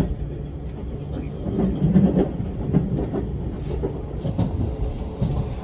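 JR 651 series electric train running, heard from inside the car: a steady low rumble with wheels knocking irregularly over rail joints and points, loudest about two seconds in.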